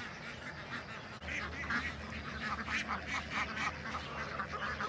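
A flock of Indian Runner ducks quacking and honking, many short calls overlapping, getting busier about a second in.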